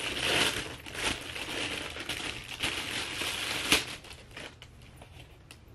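Thin plastic packaging crinkling and rustling as it is handled and pulled open, with a sharp crackle about three and a half seconds in, then only faint rustles.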